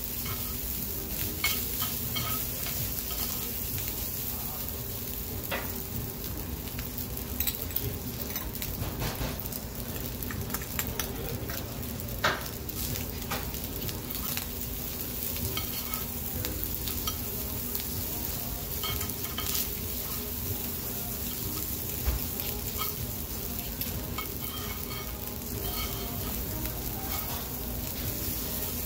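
Seafood fried rice sizzling in a hot stone bowl while two metal spoons stir and scrape it, with frequent sharp clicks of the spoons against the bowl.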